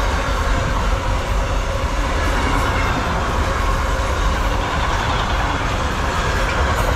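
Train passing: loud, steady rolling noise of wheels on rails with a deep rumble underneath.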